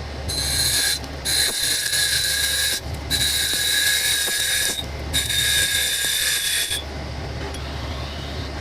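CNC lathe cutting gunmetal: four cutting passes of a second or two each, a hissing, high steady whine with short breaks between them, over the machine's steady low hum. The cutting stops about seven seconds in, leaving only the hum.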